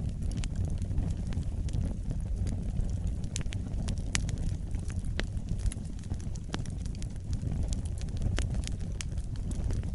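Wood fire burning in a fireplace: a steady low rumble of the flames with frequent sharp, irregular crackles and pops.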